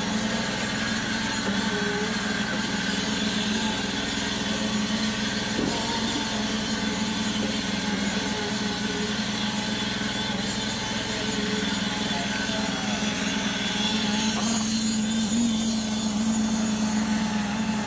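A steady engine-like machine drone with a strong low hum, changing little.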